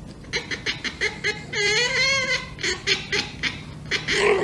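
Domestic cat vocalizing: a run of short, pitched calls, one longer wavering call in the middle, and another call near the end.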